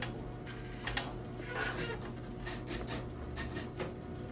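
Police station office room tone: a steady electrical hum with a scatter of short scraping and clicking handling noises, like papers or objects being moved about.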